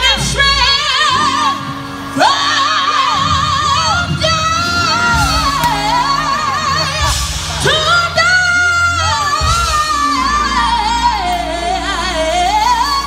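A man singing into a microphone over a live band of drums, guitar and keyboard, holding long notes with a wide vibrato and sliding between pitches.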